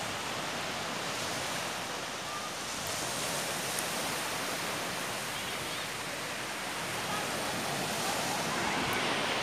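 Surf washing steadily onto a sandy beach, growing a little louder near the end.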